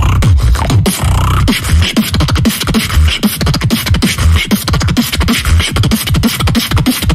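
Human beatboxing: a fast, dense beat of mouth-made kick drums, snares and hi-hat clicks over deep bass notes that drop in pitch, several a second.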